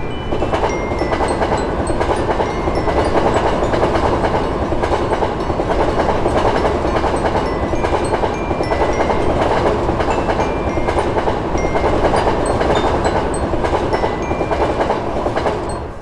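Passenger train passing over a level crossing: a steady rumble and clatter of wheels on the rails.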